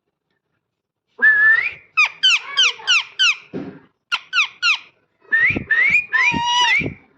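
Parrot whistling and chirping: a run of short, pitched, mostly downward-gliding notes, some repeated quickly at about three or four a second, in several clusters with brief gaps. It starts about a second in.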